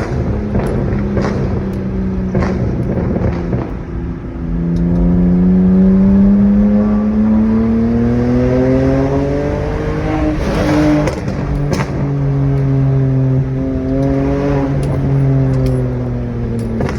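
Straight-piped BMW E92 328i's N52 inline-six exhaust, popping and crackling off the throttle at first, then accelerating with a steadily rising note. A burst of pops comes as the revs drop about two-thirds of the way through, then a steadier note, and more crackles near the end.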